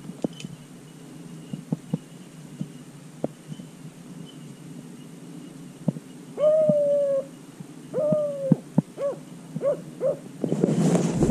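Beagle baying on a rabbit's track: two long drawn-out bays, then three short bays. Wind rushes over the microphone near the end.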